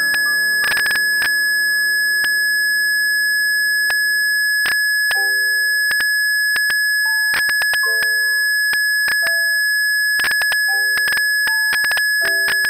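Blüthner grand piano played six-hands: sparse notes and short chords that ring and fade, a held chord dying away in the first few seconds and then new notes about every second or two. A steady high-pitched tone runs underneath throughout, louder than the piano, with scattered sharp clicks.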